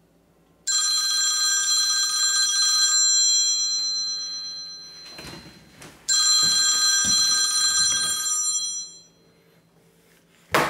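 Mobile phone ringtone: a bell-like chord that starts sharply and fades, ringing twice for an incoming call. A few low thumps come between the rings, and a short sharp knock near the end.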